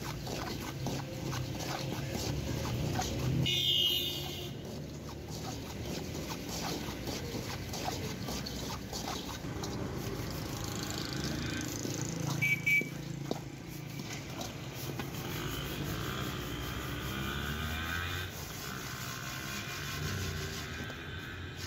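A metal scoop scraping and stirring hot sand in a large iron wok, and a perforated metal sieve shaken to sift the sand off sand-roasted kernels, with street traffic behind.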